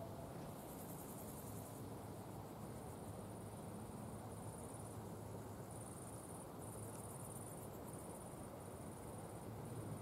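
Grassland insects stridulating in the dry grass: a high, finely pulsed buzz that comes in repeated phrases of about a second each with short gaps between, over a low steady rumble.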